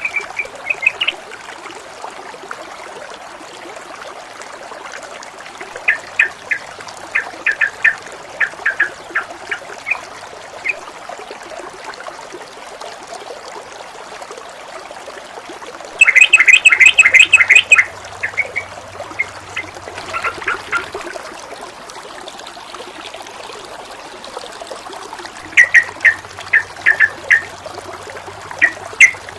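Water running and trickling with a steady rush, and over it a bird giving bursts of rapid, harsh, repeated notes: a first run about six seconds in, the loudest at about sixteen seconds, and another near the end.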